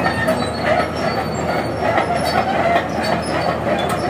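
Doosan DX225 crawler excavator travelling on its steel tracks: a steady clatter and squeal of track links over the rollers and sprockets, with the diesel engine running, as the machine is test-run on its freshly refitted final drive and travel motor.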